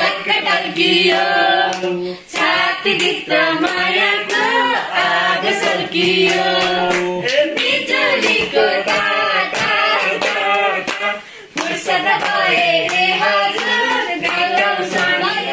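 A group of voices singing a Nepali folk song together, with steady hand clapping in time.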